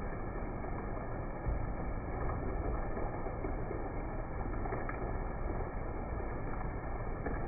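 Steady rain and wind: an even rushing hiss with a rumbling low end.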